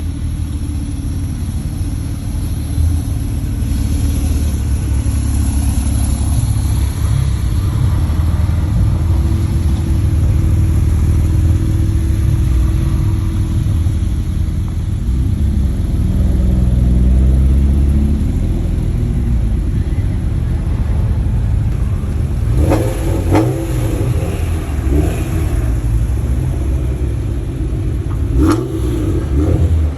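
Several sports car engines running and revving as cars drive off one after another, over a steady low exhaust rumble. One engine's revs rise and fall a little past the middle, and a few short, sharper sounds come in the last several seconds.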